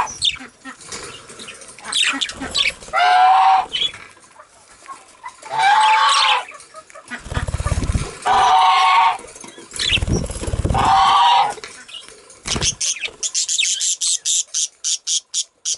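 Budgies giving loud squawking calls, one every two to three seconds, with two bouts of low fluttering in the middle. Near the end comes a quick run of high chirps, about four a second.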